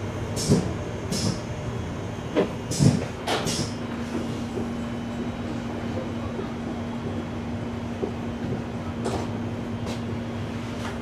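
Interior running noise of a Czech Railways class 471 CityElefant double-deck electric unit, heard inside its class 971 driving trailer: a steady rumble and hiss. Several short, sharp clacks come in the first four seconds, and after that a steady low hum holds.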